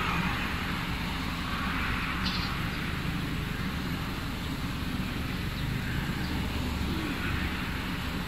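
Road traffic passing: several vehicles swell by and fade, over a steady low hum.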